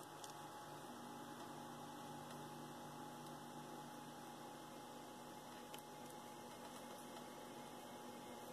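Near silence: a faint steady electrical hum over room tone, with two faint clicks, one at the very start and one a little before six seconds in.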